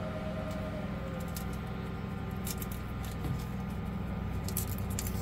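A lawnmower engine running steadily in the background, a continuous even hum. A few light clicks and crackles from close by are laid over it in the second half.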